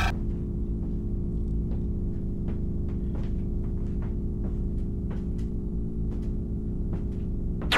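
A low, sustained soundtrack drone of several held tones, with faint scattered ticks over it. At the very end a sudden loud hiss breaks in.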